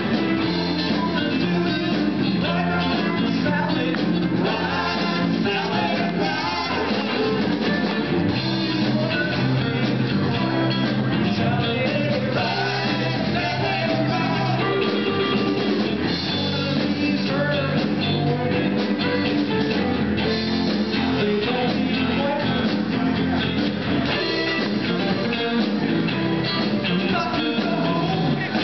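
A live rock band playing: electric guitars, bass guitar and a drum kit through stage amplifiers, steady and continuous.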